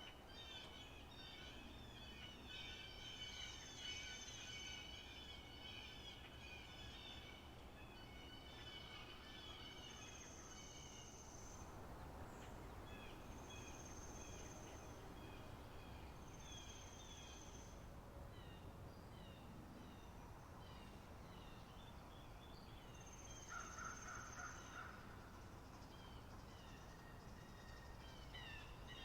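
Spring meadow nature-sound ambience: several birds singing in quick chirping phrases, busiest in the first half, with a thin high held note of about a second repeating every few seconds. A faint steady hiss lies underneath.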